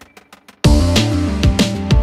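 Background music. A faint ticking melody gives way suddenly, about half a second in, to a loud electronic track with a heavy beat roughly twice a second.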